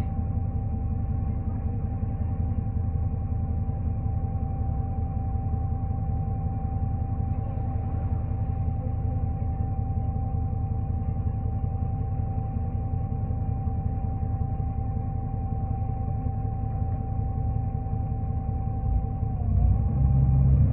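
New Flyer D40LF diesel transit bus heard from inside while riding: steady engine and road rumble with a thin steady whine over it. The low rumble grows louder near the end.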